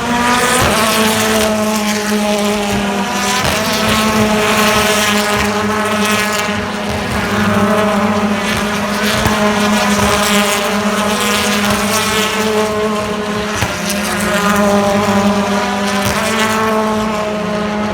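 BTCC touring cars' 2-litre turbocharged four-cylinder engines running hard, several cars at once, their pitch rising and falling as they rev and shift through the gears, over a steady low drone.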